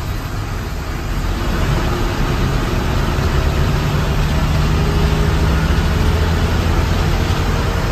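Sleeper coach's engine and road noise heard from inside the cab as the coach drives along the highway, getting louder about a second and a half in, with the engine note slowly rising as it picks up speed.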